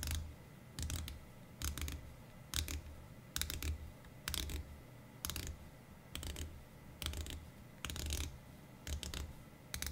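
The 120-click unidirectional rotating bezel of a Marc & Sons MSD-029 dive watch being turned by hand: short runs of crisp ratchet clicks, about one run a second, each with a dull knock. The action is nice and tight and clicky.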